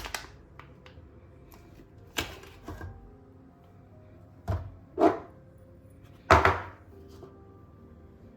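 Kitchen prep sounds: a handful of separate knocks and short scrapes a second or two apart, the loudest near the middle and about two-thirds of the way in, over soft background music.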